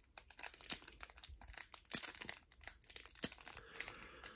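Foil wrapper of a 1991 Pro Set PGA Tour trading-card pack crinkling and crackling in irregular small snaps as fingers pinch and tear it open.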